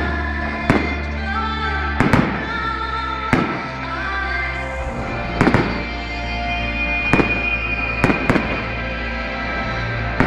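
Fireworks shells bursting in sharp bangs about every one to two seconds, over music played along with the display.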